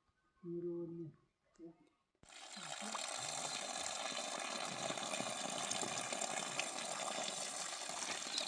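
A brief voiced call, then from about two seconds in a steady rush of running water that starts abruptly.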